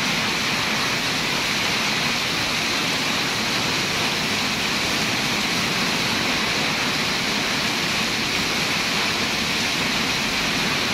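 Heavy tropical rain driven by strong wind: a steady, dense rush of water pouring onto the road and trees. Near the end a car's tyres swish through the water on the road.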